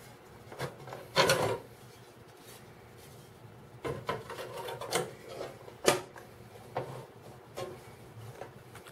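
Removable die-cast cooking plates of a contact grill being handled and taken out: a loud scraping rub about a second in, then a series of clicks and knocks, the sharpest just before six seconds.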